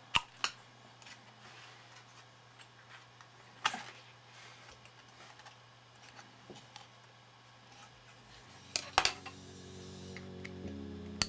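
Sharp clicks and taps from a circuit board and its plastic connectors being handled, a handful of separate knocks over a low steady hum. Background music fades in near the end.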